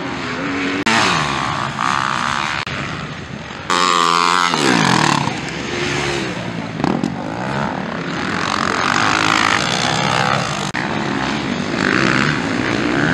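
Motocross bike engines revving up and down as riders accelerate out of corners, with the pitch rising and falling over and over. The sound jumps abruptly a few times.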